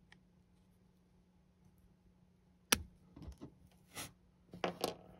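Hobby flush cutters snipping through a cast-metal model kit part with one sharp snap about two and a half seconds in, followed by a few lighter clicks.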